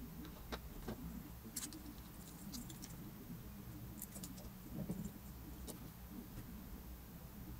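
Faint scattered clicks and light handling noise of a thin metal rod and a small metal collar being fitted by hand through a balsa block.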